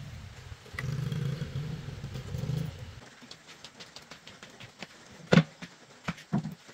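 A small motorbike engine running as a scooter rides along, cutting off about three seconds in. Then a loud thud as a small tractor wheel, a tyre on a steel rim, is set down on a concrete floor, followed by two lighter metal knocks as a metal hub is laid down beside it.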